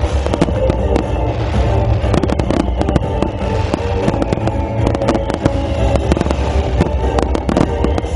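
A dense fireworks finale barrage: rapid, overlapping bangs and crackles with a continuous low rumble, over loud music.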